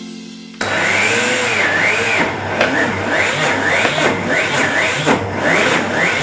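Optimum 9400 high-speed blender switching on about half a second in and running loudly while it grinds crushed paving stone. Its motor whine wavers up and down as the rock load shifts.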